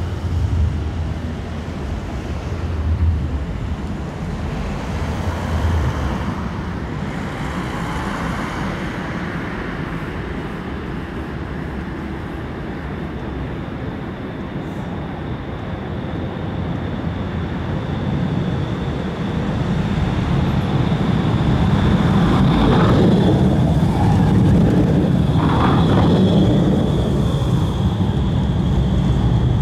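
Steady street traffic noise. Over the last third a Bombardier Flexity Outlook low-floor tram approaches and passes close, growing louder with the rumble of its wheels on the rails and a high steady whine.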